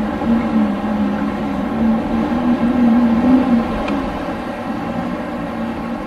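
Winter storm wind blowing steadily, with a low wavering tone rising and falling over the rush of air. It swells about three seconds in, then eases a little.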